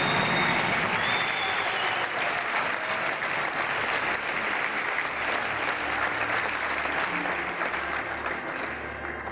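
Audience applauding, many hands clapping, dying down near the end.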